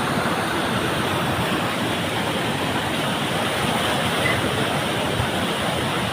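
Floodwater rushing down a swollen mountain stream in flash flood: a steady, unbroken rush of water.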